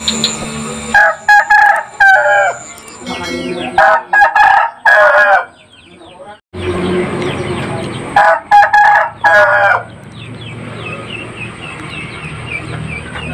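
Bangkok game rooster crowing three times, each crow about a second and a half long and broken into a few drawn-out notes. After the last crow a bird chirps in a quick repeating series.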